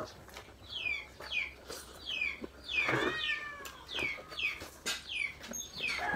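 A cat meowing over and over, short falling cries about twice a second, with one longer, lower meow about halfway through.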